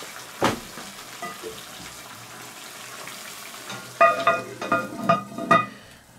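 Stew sizzling and simmering in a cast-iron Dutch oven over charcoal, with a single knock shortly after the start. About four seconds in, the cast-iron lid clanks and rings several times as it is set on the pot, and the sizzle is quieter once the lid is closed.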